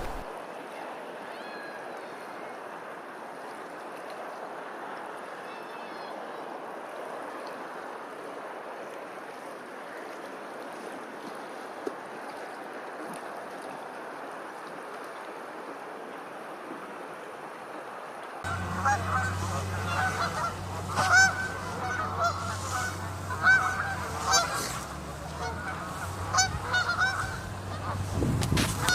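Waterfowl calling at a pond: low steady outdoor ambience with a few faint calls, then, about two-thirds of the way in, a louder run of many repeated honking calls over a steady low hum.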